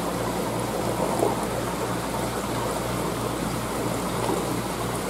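Steady water noise of an aquarium's circulating water and aeration, with a low hum underneath that pulses about three times a second.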